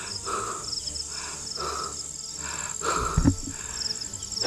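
Night insects, chiefly crickets, calling steadily: a constant high buzz with pulsed chirps over it. A low thump about three seconds in is the loudest moment.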